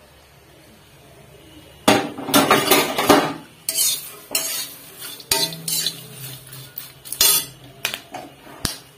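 A metal spatula scraping and clattering against a metal pan as freshly popped popcorn is stirred in it. The strokes come in an irregular run starting about two seconds in, loudest just after they begin.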